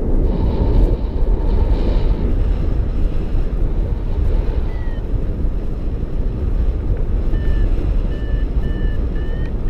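Paragliding variometer beeping about twice a second over a loud rush of wind on the microphone. The beeps begin a few seconds before the end, the sign that the glider is in rising air. The wind gusts stronger in the first two seconds.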